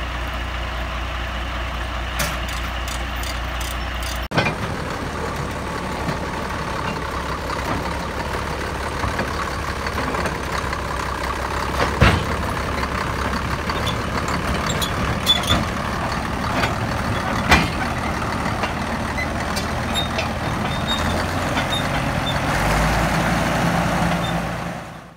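Cat D6B crawler dozer's diesel engine running steadily as the machine tracks down off a lowboy trailer, with sharp clanks from the steel tracks about twelve seconds in and again about five seconds later.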